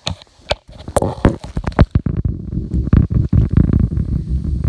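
A few sharp knocks and clicks from the phone being handled and set down. Then, from about two seconds in, yellow slime being kneaded and squished by hand close to the microphone, a dense, low, crackly squelching.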